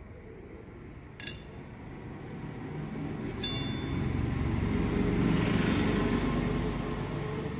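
Hero Splendor Plus clutch parts clink as they are handled and fitted by hand: one sharp metal clink with a brief ring about a second in, and a lighter ringing tick a couple of seconds later. Under it, a passing road vehicle's low rumble swells up and fades away toward the end.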